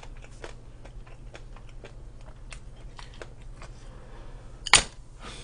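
A person eating with chopsticks: small irregular clicks of chopsticks and chewing, with one loud sharp click a little before the end, over a low steady hum.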